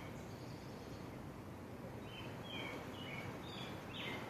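A bird's short high chirps, each dropping in pitch, one near the start and a run of several from about halfway through, over a steady low outdoor rumble.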